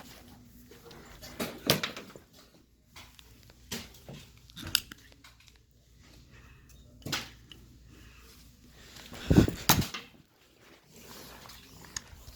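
A handful of separate sharp knocks and clacks, spaced a second or more apart, with the loudest pair close together about nine and a half seconds in.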